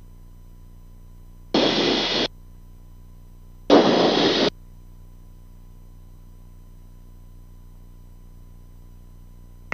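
Two short bursts of radio static, each under a second and starting and stopping abruptly, from the aircraft's VHF radio on the headset audio: a transmission keyed without speech, over a steady electrical hum.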